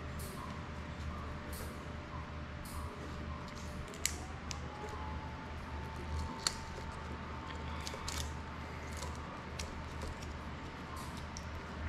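Small, irregular clicks and ticks of hands handling and fitting the parts of a GEPRC Cinelog 35 drone's frame and prop guards, with two sharper clicks about four and six and a half seconds in, over a steady low hum.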